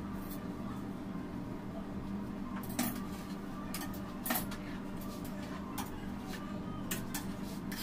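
A handful of light, sharp clicks and knocks, scattered through, over a steady low hum.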